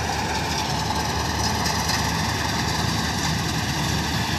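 Kartar 4000 combine harvester running steadily while cutting wheat: a continuous engine drone with a few steady, even high tones held above it.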